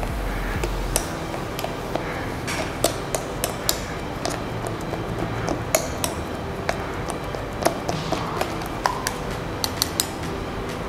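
Metal spoon clinking and scraping against a small stainless-steel strainer as blended pandan leaf pulp is pressed to squeeze out its green juice. The clinks come irregularly, several a second at times.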